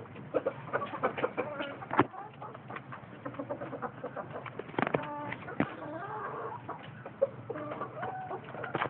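Roosters clucking in short, scattered calls, with a few sharp taps, the loudest about two seconds in and again around five seconds.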